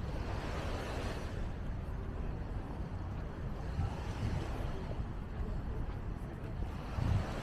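Wind rumbling on the microphone, with surf washing onto the beach in slow swells that rise and fall a few times.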